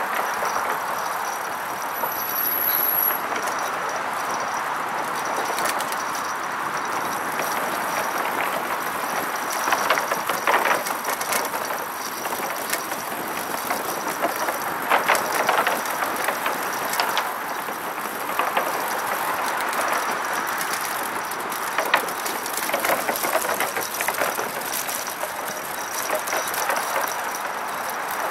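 Bicycle in motion: a steady rush of tyre and air noise, broken a few times by short clusters of clicking and rattling as the bike goes over rough patches.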